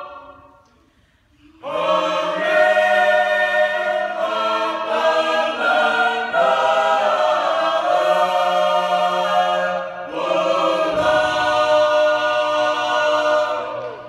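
Mixed church choir singing a Tongan song a cappella in full chords. A held chord dies away at the start, the choir comes in again about a second and a half later, takes a short breath about ten seconds in, and stops near the end.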